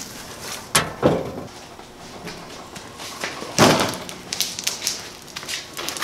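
Portable Gen-Pro 8000-watt generator on solid flat-free tires being wheeled down a wooden plank ramp onto a concrete floor: its steel frame knocks and rattles, with the loudest thump about three and a half seconds in.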